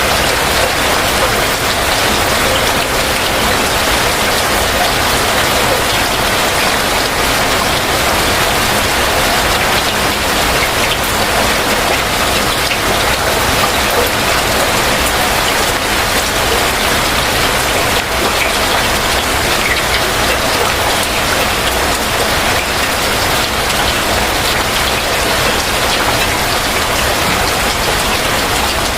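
Heavy rain falling steadily, a loud, even hiss of drops.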